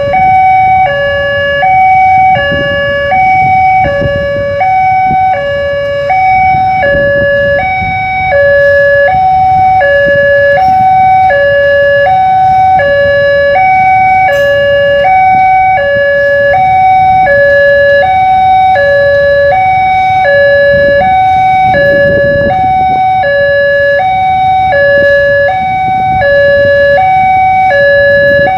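Indonesian railway level-crossing electronic alarm sounding a steady two-tone hi-lo warning, each tone held a little over half a second, signalling that a train is crossing. Beneath it runs the low rumble of a passenger train rolling through the crossing.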